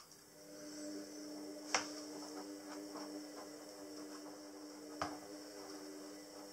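Pine flat-pack parts and wooden dowels being handled and set down on a worktop: two sharp wooden knocks, about two seconds in and about five seconds in, among lighter taps, over a steady low hum.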